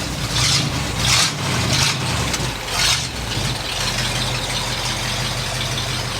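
Vehicle engine just started, running with a few uneven surges over the first three seconds, then settling into a steady idle.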